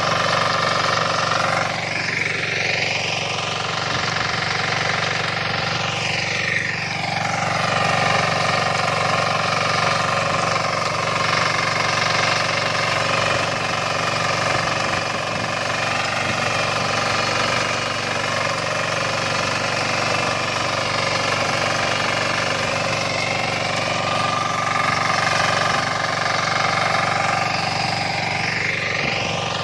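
Varsha 9 hp single-cylinder diesel power weeder running steadily under load, its rotary tines churning dry, stony soil as it forms a bund.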